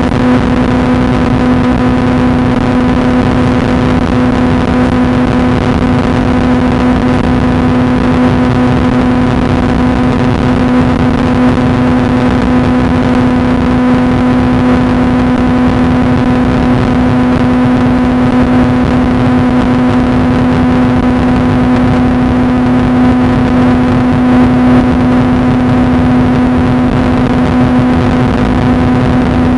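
A loud, steady hum at one fixed pitch with fainter overtones over a noisy hiss, unchanging throughout.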